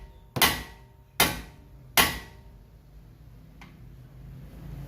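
Three hammer blows about a second apart on the Chevy Impala's steering knuckle, each ringing briefly, knocking the outer tie rod end's tapered stud loose from the knuckle.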